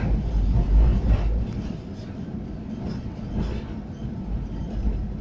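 Tram running along the track, heard from inside the passenger car: a steady low rumble of wheels on rail. It is louder for the first second and a half, then settles a little lower.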